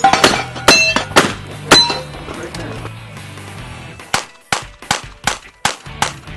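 Revolver shots: four about half a second apart, some followed by the ring of a struck steel target, then a quick string of six shots about two and a half a second.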